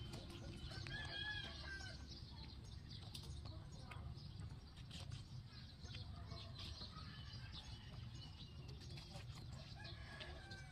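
Two rabbits chewing watermelon: soft, irregular crunching clicks of their teeth working the fruit. Faint bird calls are heard about a second in and again near the end.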